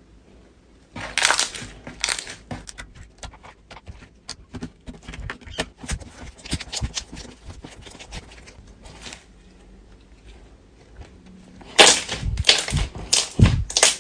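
Slime being squeezed and worked by hand: a dense run of sharp little clicks and pops. It quietens for a few seconds, then a few louder squelching bursts come near the end.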